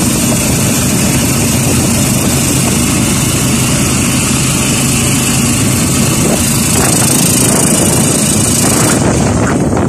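Motorcycle engine of a sidecar tricycle running steadily on the move, under loud wind and road hiss, with some knocks from the sidecar late on. The hiss drops about nine seconds in.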